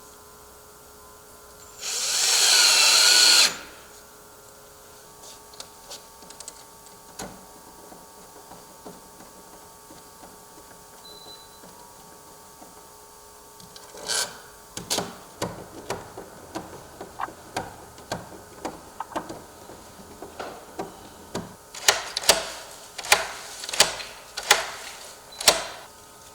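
Cordless drill driving a screw in one burst of about a second and a half, its motor pitch wavering under load. About halfway on, a run of sharp clicks and knocks follows.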